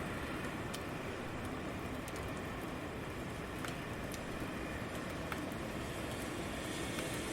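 City rain ambience: steady rain with a low rumble of traffic underneath, and a few sharp drip ticks scattered through it.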